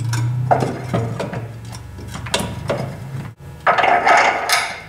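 Metal clunking and scraping as a tubular steel control arm is worked by hand into its frame bracket, with a longer, louder grinding scrape near the end. A steady low hum runs underneath.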